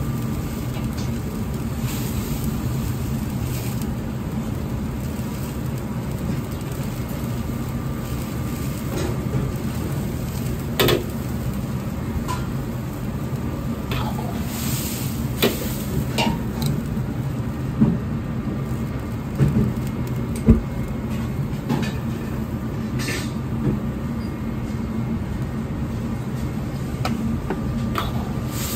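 Commercial wok range running with a steady low rumble while sauce boils in a carbon-steel wok. A metal ladle knocks against the wok several times through the middle, the sharpest knock about two-thirds of the way in.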